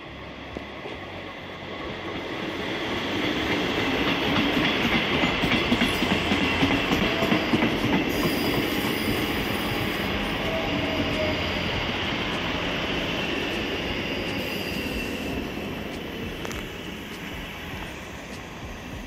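Two coupled ScotRail Class 334 electric multiple units running into the platform and slowing: wheels clattering on the rails with a high squeal over the rumble, growing louder over the first few seconds as the train draws level, then fading as it slows.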